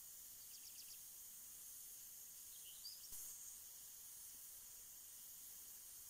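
Faint, steady hiss of pop-up lawn sprinklers spraying water, with a quick run of high chirps near the start and a single rising chirp and a light click about halfway through.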